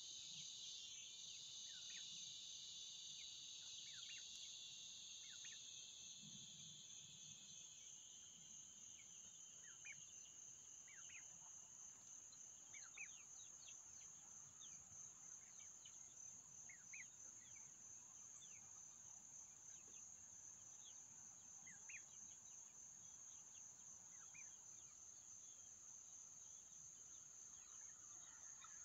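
Faint insect chorus: a steady, high-pitched pulsing trill, with a second, lower buzz that fades out in the first third. Short rising chirps come every second or two over it.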